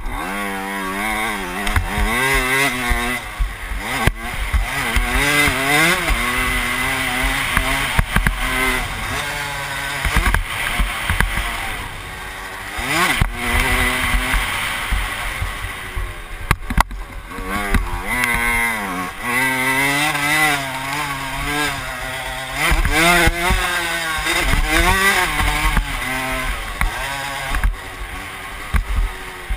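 Dirt bike engine revving up and dropping back again and again as it is ridden around a motocross track, its pitch climbing and falling with each straight and corner. Wind buffets the helmet-mounted microphone underneath.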